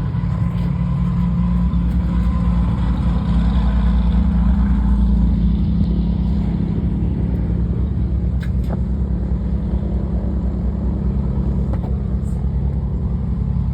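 Cessna Citation Latitude business jet's engines, landing. The jet noise swells to a peak about four to five seconds in and then eases, over a steady low rumble.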